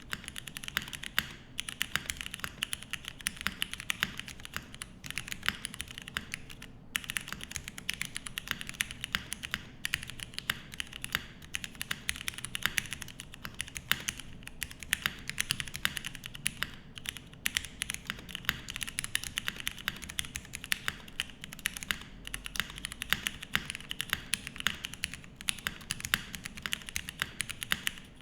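Steady typing on a MONOKEI x TGR Tomo custom mechanical keyboard: top-mounted polycarbonate plate, lubed Cherry MX Black linear switches with 57 g springs, and Space Cadet II keycaps. The keystrokes come fast and close together, with a brief pause about seven seconds in.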